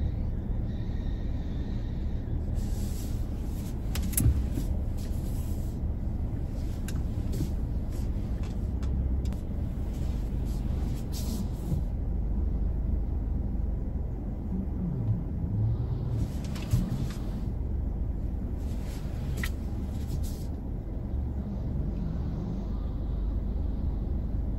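Low, steady rumble of a car moving slowly, heard from inside the cabin, with stretches of faint hiss and a few scattered light clicks.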